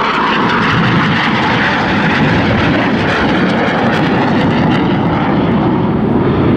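Red Arrows BAE Hawk T1 jets flying past, a loud steady rush of jet engine noise whose pitch settles lower over a few seconds.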